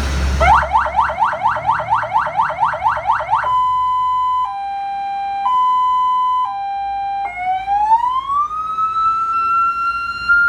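Electronic emergency-vehicle siren stepping through its tones: first a fast yelp of about four rising sweeps a second, then a hi-lo two-tone alternating about once a second, then a wail that rises slowly and holds high.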